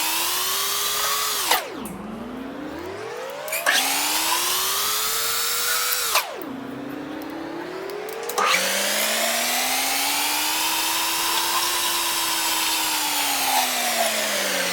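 Lathe machining a steel shaft: a steady machine whine whose pitch sweeps smoothly up and down as the spindle speed changes. It is louder during three cutting passes, one long pass near the end, with quieter spells between them.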